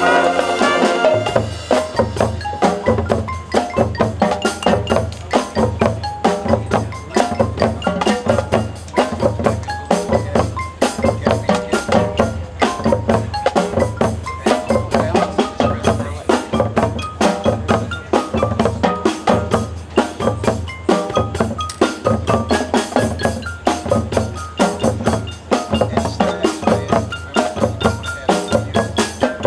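Marching band percussion feature: fast mallet percussion and drums over a steady low beat about twice a second. A brass chord held from before ends about a second in.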